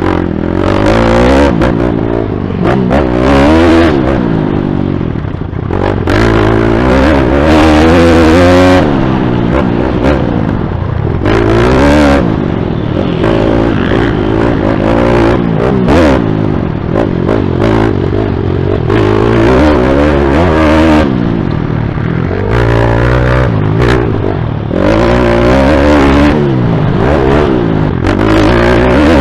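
YCF pit bike's single-cylinder four-stroke engine being ridden hard on a dirt motocross track, loud and close up from the rider's helmet. Its pitch climbs and drops again and again as the throttle is opened and shut, with short dips in level every few seconds.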